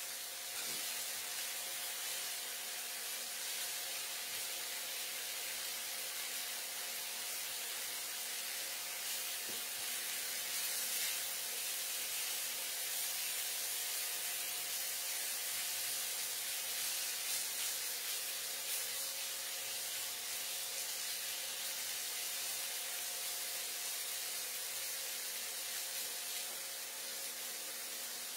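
Marinated chicken breast pieces sizzling steadily in hot oil in a nonstick frying pan, over a faint steady hum.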